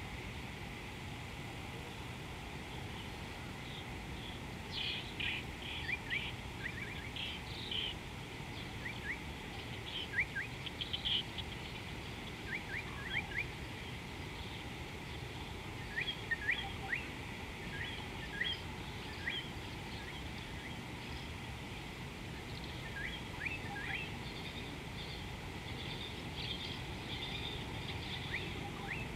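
Birds calling: short rising chirps and brief bursts of chatter, scattered irregularly throughout over a steady low background noise.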